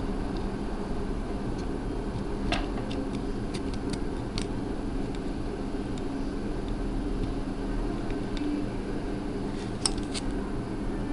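Scattered light clicks and taps from tools and an Xbox controller's circuit board being handled during desoldering, a sharper click about ten seconds in, over a steady low hum.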